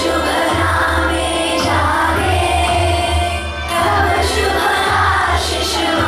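A group of schoolchildren singing a song together in unison.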